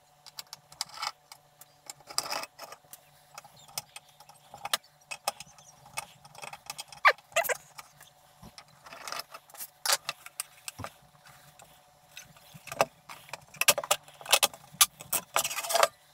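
Small screwdriver working the screws out of a floppy drive's top cover, with screws tapped down on a wooden desk and the cover handled and lifted off: an irregular string of small metallic clicks, taps and scrapes.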